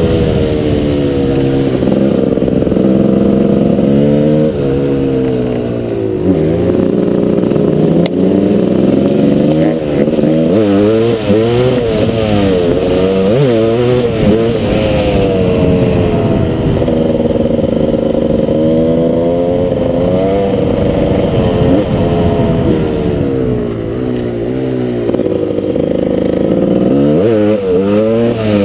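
Gas Gas 300 two-stroke dirt bike engine under way, its revs rising and falling again and again as the throttle is worked and the gears change, with a few short stretches held at steady revs.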